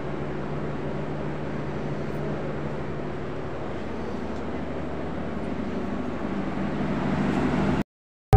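Steady rushing background noise with a low hum, like a fan or motor running. It cuts off abruptly near the end.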